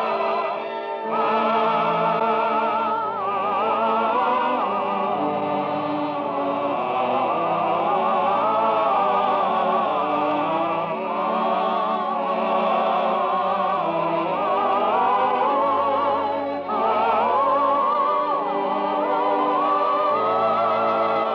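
Closing music of a 1951 radio broadcast: held chords under a high melody line that wavers in pitch, running on without a break.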